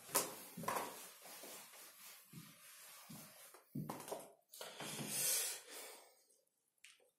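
Whiteboard eraser rubbed back and forth over a whiteboard in a series of swishing strokes, which stop about six seconds in.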